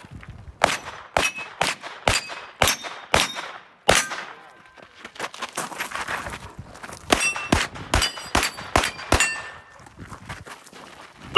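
Rapid gunshots at a steel match, each followed by the clang and ring of a hit steel plate, in quick runs of several shots with short pauses between.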